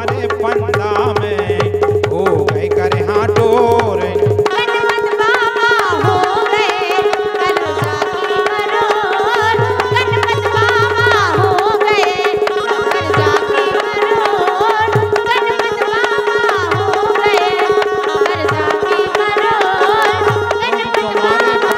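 Instrumental interlude of Bundeli folk music. A harmonium and electronic keyboard play a wavering melody over a steady held drone note, and a dholak plays runs of bass strokes that come and go.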